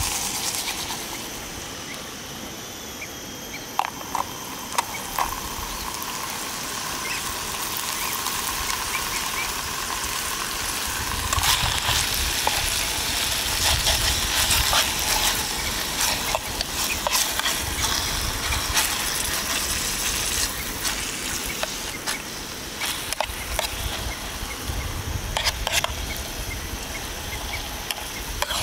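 Sliced beef sizzling and bubbling in oily broth in a small camping pot on a gas stove, a steady hiss. From about halfway on, a spoon clinks and scrapes against the pot as the meat is stirred.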